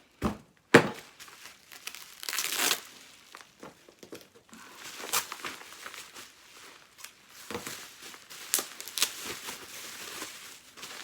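Packaging being opened by hand: wrapping crinkling and tearing, with two sharp knocks in the first second, the second the loudest.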